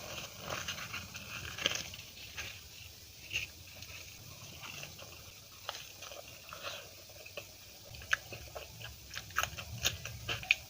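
Close-miked eating: a person biting and chewing food, with scattered short crisp crunches and mouth clicks that come thicker near the end.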